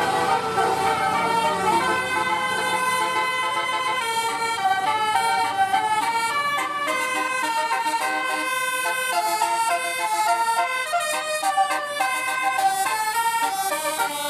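Multi-note 'telolet basuri' bus horn playing a fast tune, its notes stepping up and down in pitch several times a second, quickening from about four seconds in.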